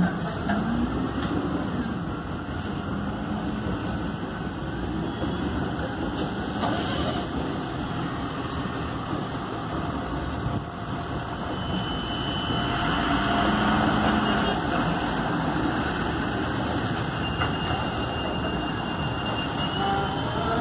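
Heavy diesel engines running steadily: a Cat 980M wheel loader working with its bucket raised to load gravel into a tipper truck, with trucks idling alongside. The engine noise grows louder for a few seconds past the middle as the loader lifts its bucket.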